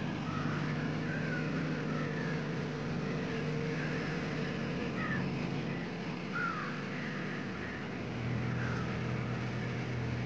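A steady low mechanical hum, like a running engine, dropping to a lower pitch about eight seconds in, with short high chirps scattered over it.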